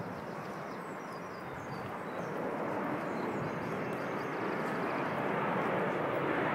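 Jet airliner flying low overhead on the Heathrow flight path, its engine noise a steady rushing sound that grows gradually louder as it approaches.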